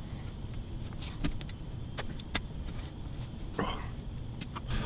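A few sparse light clicks and taps from a razor blade prying at the tiny inlay dots in a guitar fingerboard and small tools being handled, over a low steady hum.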